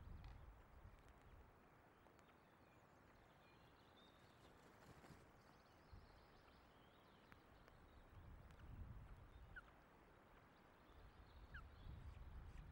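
Faint wind buffeting a nest camera's microphone: a low rumble that swells in gusts at the start, about eight seconds in and again near the end. Two faint short high chirps come in the later part.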